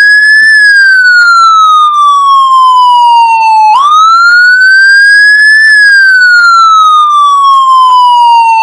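Emergency-vehicle siren wailing loudly in slow cycles: the pitch sweeps up quickly, then falls slowly for about three seconds, sweeping up again a little under four seconds in.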